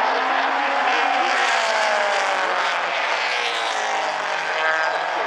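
A pack of mini stock race cars running hard around the oval, several engines at once, their pitches sliding up and down as they pass and change throttle.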